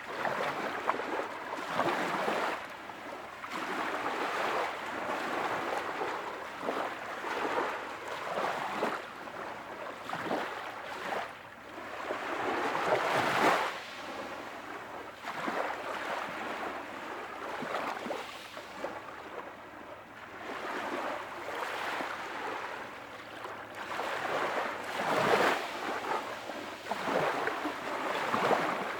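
Smoothed ocean soundscape of waves washing with a soft rush of air, swelling and easing every couple of seconds, with the strongest surges about thirteen and twenty-five seconds in.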